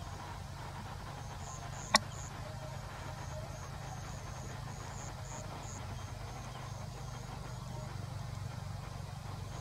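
Outdoor ambience: a steady low rumble under a high chirping that repeats about three times a second, with one sharp click about two seconds in.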